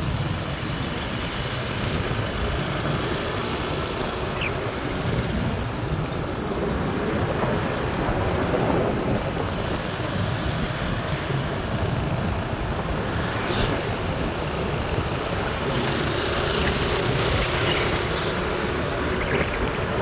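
Steady rush of wind over the microphone and road traffic noise while riding along a busy city road in an open vehicle.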